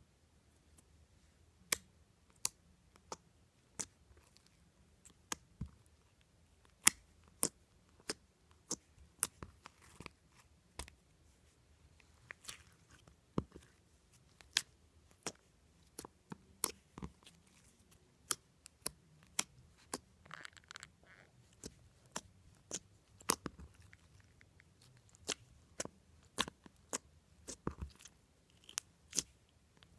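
Flarp noise putty being squeezed and poked in its tub, giving irregular sharp pops and clicks, about one or two a second, with a brief longer squelch about twenty seconds in.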